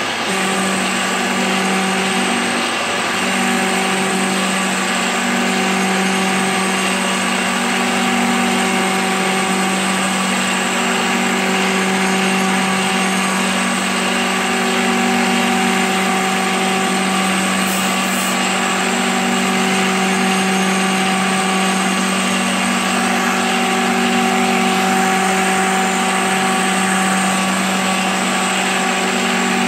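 CNC milling machine spindle running with an end mill cutting a pocket in cast iron: a steady machine hum with a constant pitch over the hiss of the cut.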